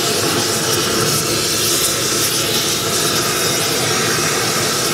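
Propane torch flame burning steadily, a loud even rushing noise that comes in suddenly at the start. It is preheating a copper boiler backplate for silver soldering.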